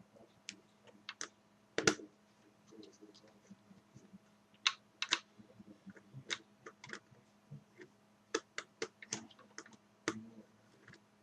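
Irregular small clicks and taps of a screwdriver working screws out of an HP DV6000 laptop's plastic case, with the laptop's hard plastic parts being handled; the sharpest click comes about two seconds in.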